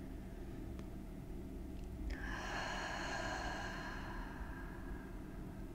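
A long breath, starting sharply about two seconds in and fading away over about three seconds, over a faint steady room hum.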